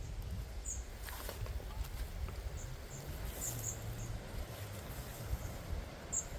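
Outdoor ambience: a steady low wind rumble on the microphone, with about seven faint, very short high-pitched chirps scattered through it.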